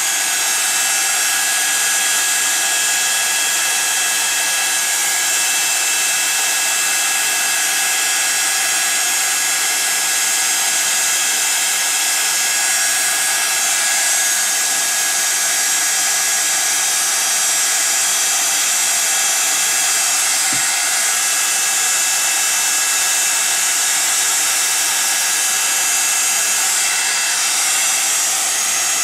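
Embossing heat gun running steadily, blowing hot air to melt embossing powder on acetate: a steady hiss with a faint high whine.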